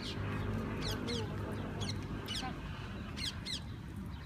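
Small birds chirping: repeated short, high, falling notes, often in quick pairs, over a low steady hum.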